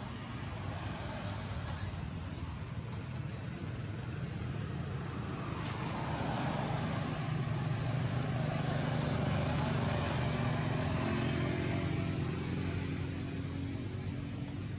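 A motor vehicle running on the road, its engine growing louder about halfway through and easing off near the end, over steady outdoor background noise.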